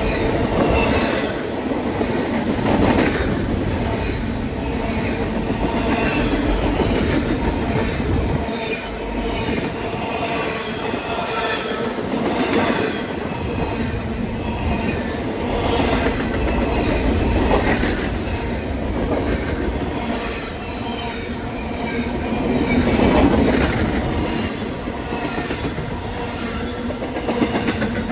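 A train rolling past on steel rails: a steady run of railcars, the wheels clacking over rail joints about every second or so, with a thin high wheel squeal over it.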